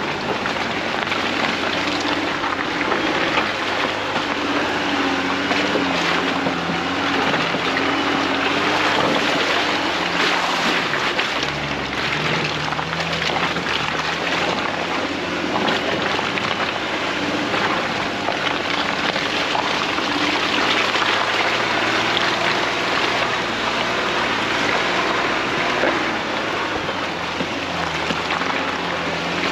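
Jeep Wrangler JL Rubicon's engine running while the Jeep drives slowly over the trail, its note shifting a little in pitch. A steady rushing noise of tyres and wind lies over it.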